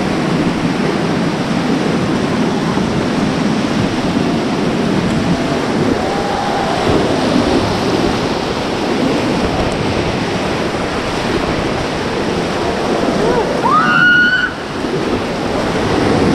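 Whitewater rapids rushing loudly and steadily around an inflatable raft as it runs the rapid. A few faint shouts come through the rush, and a short rising cry sounds about two seconds before the end.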